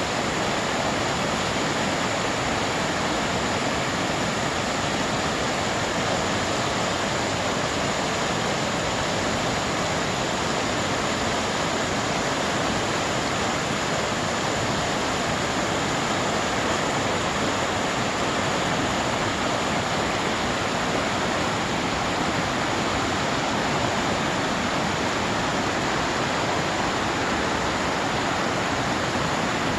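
Steady rush of flowing water, an even unbroken sound with no change in level.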